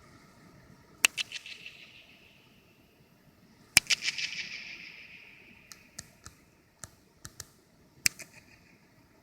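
Sharp impulsive strikes echoing inside a large spherical dome. Each strike is followed by a rapid fluttering echo and a long ringing decay. The three main strikes come about a second in, just under four seconds in (the loudest) and about eight seconds in, with several smaller clicks between.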